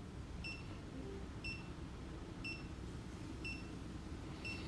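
Mi Electric Scooter Pro 2 beeping: short high electronic beeps repeating evenly about once a second while it is switched on and being paired with the phone app.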